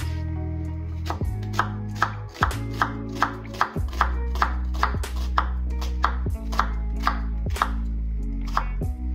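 Chef's knife chopping a white onion on a wooden cutting board, with sharp knocks on the board at about two cuts a second starting a little over a second in, over background music.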